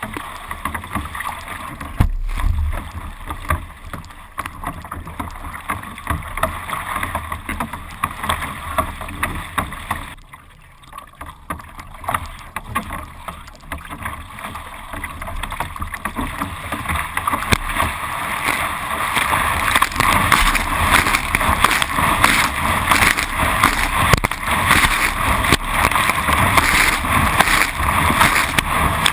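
Water splashing and slapping against the bow of a Carbonology Atom surf ski as it is paddled through choppy water, with a thump about two seconds in. The splashing gets louder and busier in the second half as spray comes over the bow.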